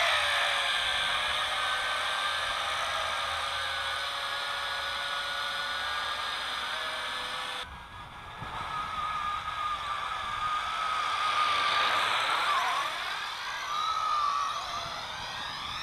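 Small quadcopter's motors and propellers whining in flight, a steady high multi-toned buzz. It dips briefly about halfway through, then its pitch bends up and down as the drone manoeuvres.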